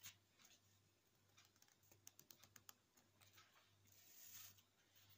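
Near silence with faint light clicks, a quick cluster of them about two seconds in, and a soft brief rustle near the end.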